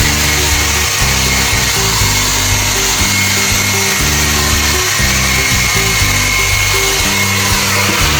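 Hair dryer blowing steadily, an even rushing noise with a thin high whine, over background music with a bass line.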